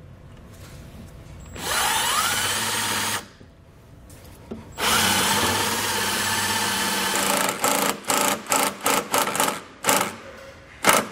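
Milwaukee M18 cordless impact driver driving a self-tapping screw into the sheet-metal flange of a car's underbody. It gives a run of about a second and a half, then a longer steady run, then a string of short trigger bursts as the screw is snugged down on the ground terminal.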